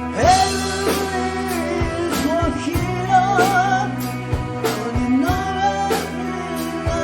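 A rock band playing live: drums hitting a steady beat under sustained bass notes, with a sung melody that wavers in a wide vibrato about halfway through.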